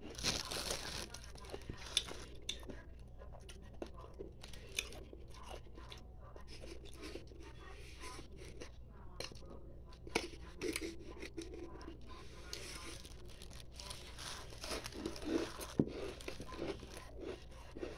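Refrozen ice being bitten and crunched close to the mouth: a run of crisp crunches and crackles, irregular, with louder bites here and there.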